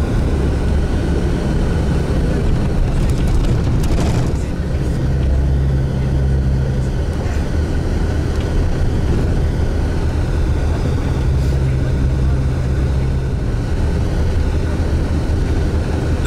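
Steady low engine and road drone inside a moving vehicle, swelling slightly a couple of times, with a few brief knocks about four seconds in.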